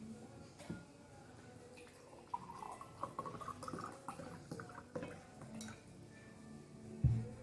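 Water glugging as it is poured from a glass bottle into a drinking glass for about two and a half seconds, rising slightly in pitch as the glass fills. A single heavy thump comes near the end.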